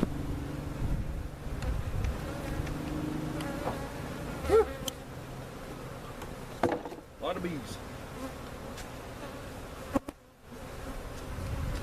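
A mass of honey bees buzzing around an open hive just stocked with a cutout colony. A few short sharp sounds cut through it, the loudest about four seconds in.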